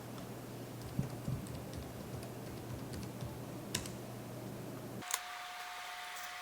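A few sparse computer keyboard keystrokes, short separate clicks, over a low steady hum; about five seconds in the background hum cuts off and a steady higher tone takes its place.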